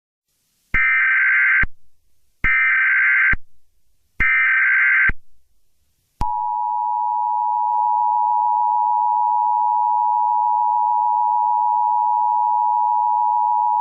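Emergency Alert System tones announcing a required monthly test: three short bursts of SAME header data, each under a second with a short gap between, then the steady two-tone EAS attention signal starting about six seconds in.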